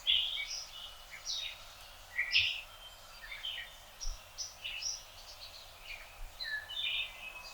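Songbirds chirping and singing, many short high calls overlapping one another over a faint outdoor hiss.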